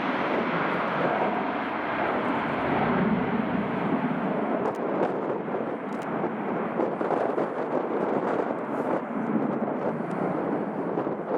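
Aircraft engine noise running steadily, mixed with wind on the microphone; the higher hiss thins out after about four seconds.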